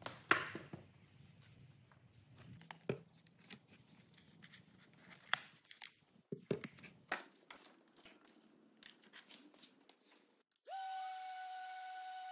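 Plastic clicks and knocks of a Festool ETS 125 random orbital sander with its edge guide being handled. Near the end the sander switches on with a quick rising whine and settles into a steady high-pitched run.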